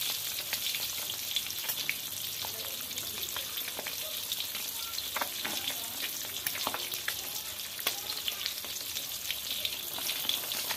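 Egg frying in hot cooking oil in a wok: a steady high sizzle with scattered crackles and pops.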